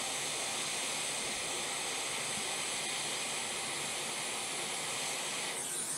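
A steady, even hiss that does not change.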